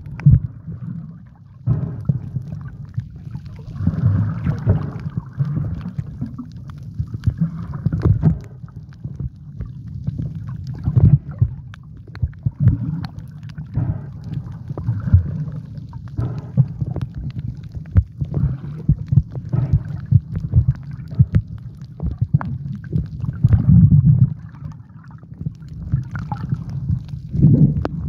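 Water heard through a camera held underwater: a low muffled rumble of moving water that swells and fades irregularly, with many small clicks and crackles.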